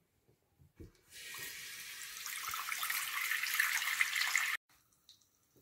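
Water running from a bathroom sink tap into the basin, starting about a second in just after a short knock as the tap handle is turned. It grows louder and stops suddenly near the end.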